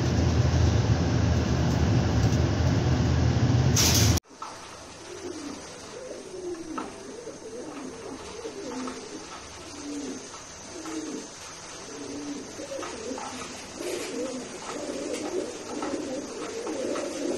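A loud steady low rumble that cuts off suddenly about four seconds in, followed by a Nok Ghannar (Nok Qannar) pigeon cooing over and over, a string of low wavering coos.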